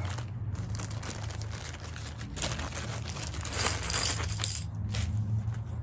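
Hands handling wiring and small metal parts: rustling with light metallic clinks, busiest in the middle, over a steady low hum.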